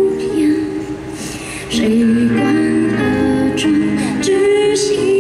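A woman singing a slow, gentle song live into a handheld microphone, holding long notes.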